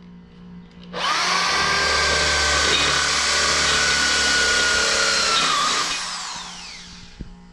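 Electric hand drill spinning up, running steadily for about five seconds as it bores holes in a lawn mower transaxle's metal pulley, then winding down with a falling whine.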